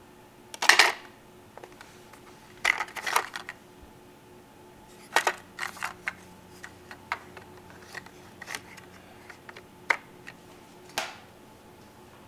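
Plastic clicks and clacks of a portable cassette recorder being handled: its keys pressed and a cassette taken out of the tape compartment. The sharp clicks come in small clusters every couple of seconds, with lighter ticks between.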